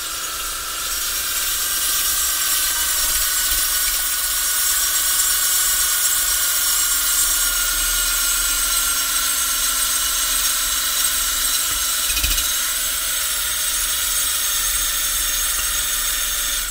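A wire brush on a power tool running steadily as it scours a quarter-inch crust of burnt food from the inside of a solid aluminum pressure cooker. The motor's pitch sags slightly as it works, with a brief knock about twelve seconds in.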